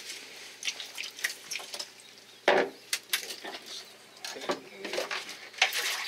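Sharp knocks and metallic clinks as a metal tool strikes and handles a freshly caught yellowtail on a fishing boat's deck, dispatching the fish, with the loudest knock about two and a half seconds in. Wet, splashy water noise builds near the end.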